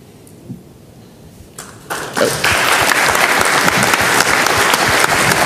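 Audience applause starting about two seconds in: many hands clapping at once, dense and steady.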